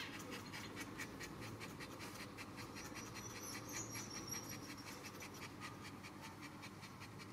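Small dog panting faintly in a quick, even rhythm, several breaths a second.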